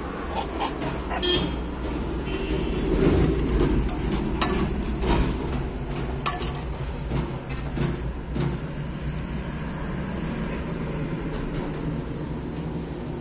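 Steady low rumble of road traffic, swelling for a few seconds and then settling, with a few sharp clicks over it.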